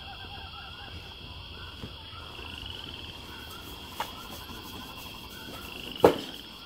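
Outdoor background of many small repeated chirping calls over a steady high-pitched buzz, with a faint click about four seconds in and a sharp knock about six seconds in.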